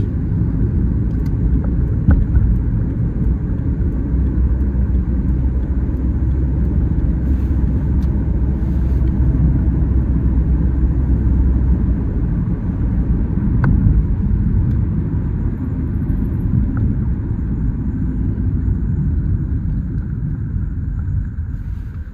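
Steady low engine and road rumble inside a moving Toyota car's cabin, easing off near the end.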